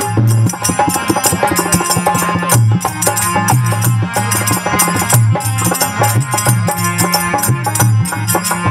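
Instrumental passage of a Rajasthani devotional bhajan: a harmonium plays the melody over a fast, steady hand-drum beat, with rapid clicking hand percussion on top.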